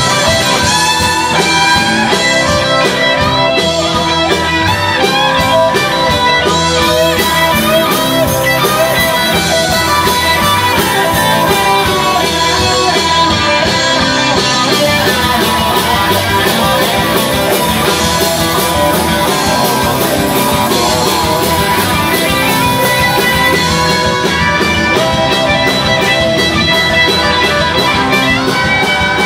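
Live band playing a song: two electric guitars over electric bass and a drum kit.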